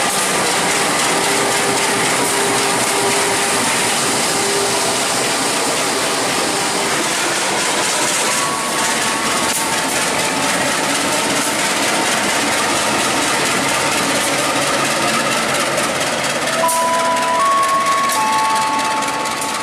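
KAI diesel-electric locomotives running through a station with their trains: a steady, loud mix of engine running and wheels rushing and clattering on the rails. Near the end a held tone sounds for about three seconds, stepping up in pitch partway through.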